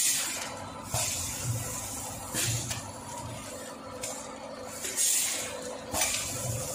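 Vertical granule bag-packaging machine running, with a steady hum and a series of short air hisses, one every second or two.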